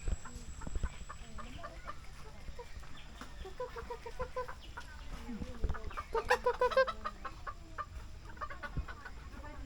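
Chickens clucking: rapid runs of short clucks, one about three and a half seconds in and a louder run around six to seven seconds in.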